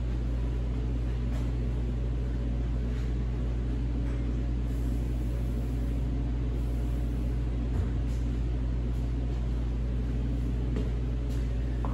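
Steady low hum of a running machine, with a single faint click about eight seconds in.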